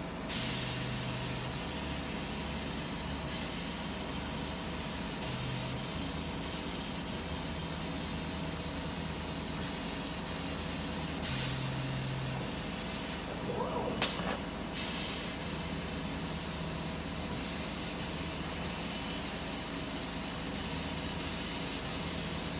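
Laser cutting machine cutting clear acrylic: a steady hiss of assist air at the cutting nozzle over the machine's running noise, with short low hums that come and go and one sharp click about halfway through.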